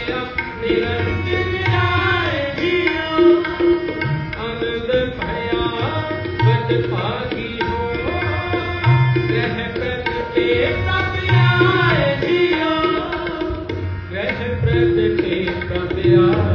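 Shabad kirtan: tabla playing a steady beat with deep bass strokes, under held harmonium tones and a singing voice.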